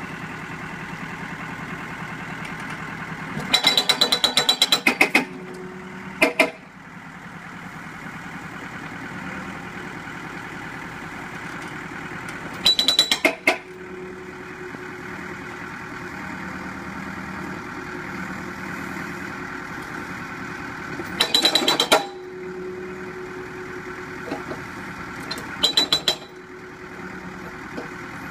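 Arrowhead S60 hydraulic breaker on a Cat 432D backhoe loader hammering a lump of rubble in short bursts of rapid blows, four or five times, on its first test after mounting. Between the bursts the backhoe's diesel engine runs steadily.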